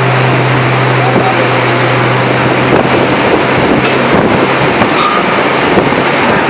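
Loud, steady machinery noise from a 2000-ton open-die forging press at work in a forge shop. A strong low hum dies away a little past the middle, and two short sharp clicks come in the second half.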